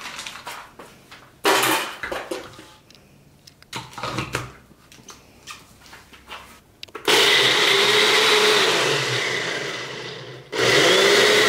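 Personal cup blender running loud and steady, blending a protein shake with ice, starting about seven seconds in; it stops for a moment and starts again near the end. Before that, knocks and clatter of the cup and ingredients being handled.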